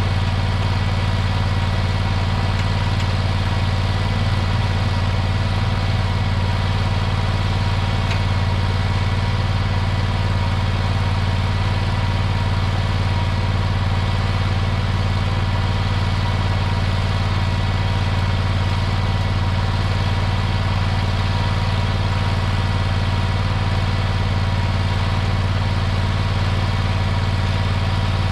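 Mini skid steer's engine idling steadily, a loud even low hum that does not change pitch or level.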